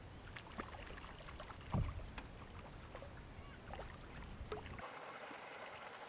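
Scattered small clicks and knocks from an angler handling fishing gear in a plastic kayak, with one louder low thump a little under two seconds in. Near the end the sound changes abruptly to a steady hiss.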